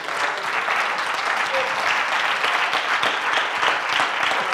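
Congregation applauding: steady, dense clapping from many hands, with some voices mixed in.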